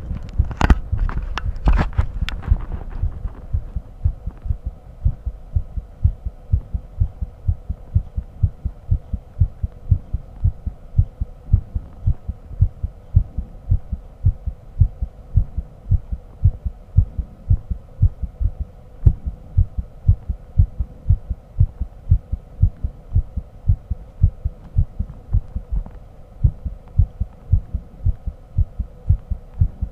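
Heartbeat picked up by a USB microphone held against the chest, a steady run of low, dull thuds at about two a second. A few scratchy knocks come in the first three seconds, and a faint steady hum lies underneath.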